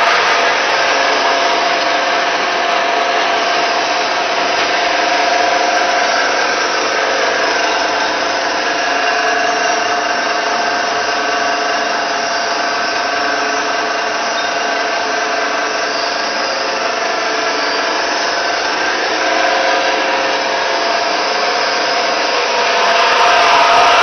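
Rib plough mixer running: its electric motor and gearbox give a steady mechanical hum with several even whining tones, unchanging throughout.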